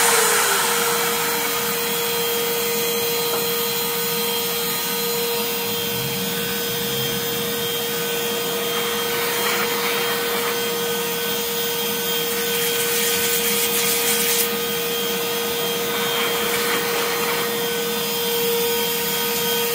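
Router spindle of a Mostly Printed CNC (MPCNC) running with a steady whine over the rushing of a dust-collection vacuum. A couple of louder rasping bursts come partway through as the 1/8-inch bit works in MDF.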